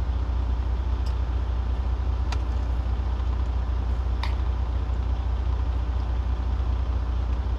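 Steady low rumble of an idling truck engine heard inside the cab, with a few light clicks of a fork against a plate.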